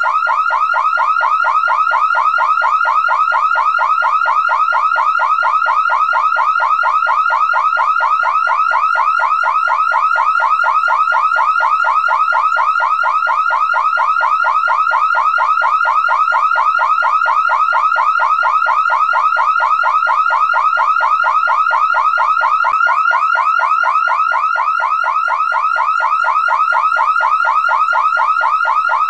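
Car alarm sounding continuously: a loud electronic siren repeating quick pitch sweeps in a rapid, even warble that does not change.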